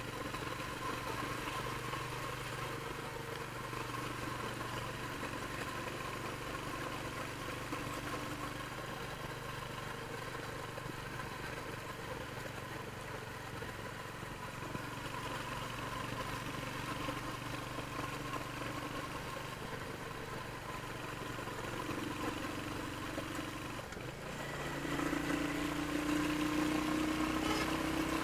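Royal Enfield Hunter 350's single-cylinder engine running through its stock exhaust, a steady beat for most of the stretch. About four-fifths through it gets louder and its pitch climbs slowly as the engine picks up revs.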